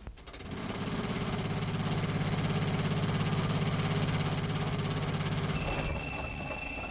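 Old motor vehicle engine, the jitney, starting up and running with a fast, even pulse, easing off about six seconds in. A steady high ringing tone comes in shortly before the end.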